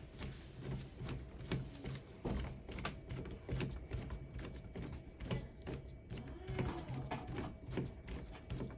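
Irregular clicking and knocking of a deadbolt lock's metal parts and tools being handled while the lock is installed in a door, over a steady low hum.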